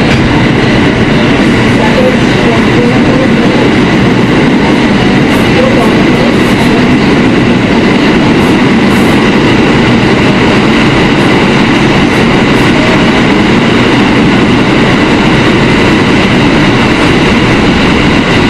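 Inside a Kawasaki R160B subway car running at speed through a tunnel: a loud, steady rumble of wheels on rail with a faint steady high tone, on new tunnel track that can be very loud.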